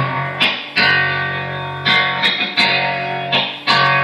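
Instrumental music led by guitar: chords strummed with sharp attacks about once a second, ringing on over a steady bass note.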